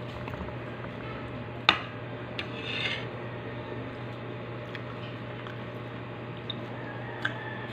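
Fingers gathering food on a plate while eating by hand: soft scraping and small clicks, with a sharp tap about a second and a half in and a brief scrape near three seconds. A steady low hum runs underneath.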